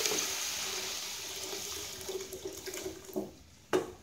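Thin dal being poured from a metal pot into a hot tempering pan, splashing and sizzling, with the hiss fading away. A sharp knock comes near the end.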